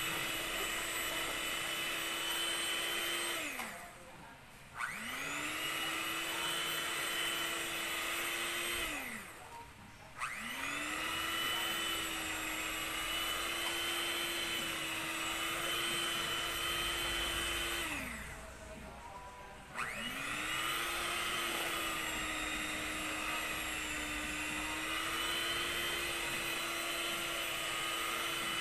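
Electric hand mixer running with a steady whine, its beaters working batter in a stainless steel bowl. It is switched off and back on three times, the whine dropping in pitch as the motor winds down and rising again as it spins back up.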